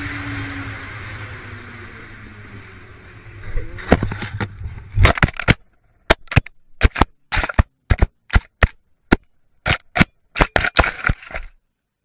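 A steady rushing noise with a low hum fades away. Then come a few loud sharp impacts, followed by a run of about fifteen separate sharp cracks, each a fraction of a second apart, that stop suddenly near the end.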